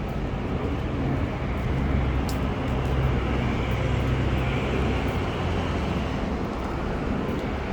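Steady low rumble of a running vehicle, its engine hum and road noise holding level.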